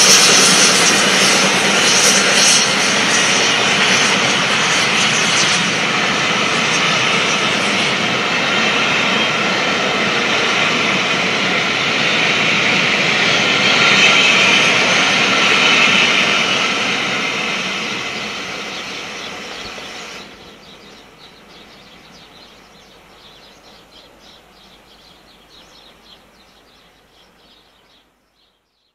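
A steam-hauled passenger train passing at speed: the coaches' wheels running loudly over the rails, with the LMS Jubilee steam locomotive working hard and drawing away ahead. The noise drops sharply about twenty seconds in as the last coach goes by, then fades out.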